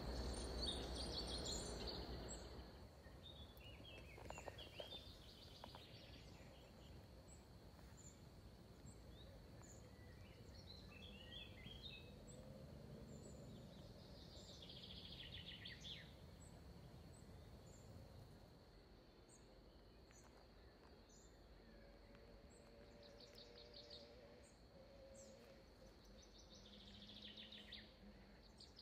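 Quiet garden ambience: birds chirping here and there, with short trills around the middle and near the end, over a faint steady high tone and soft background noise. A louder rush of low noise fills the first two seconds or so.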